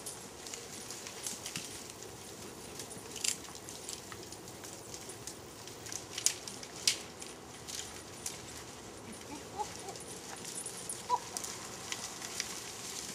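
A herd of goats moving over dry ground and brush: scattered sharp clicks and rustles of hooves and snapping twigs over a low outdoor hiss, with a few faint short calls about ten seconds in.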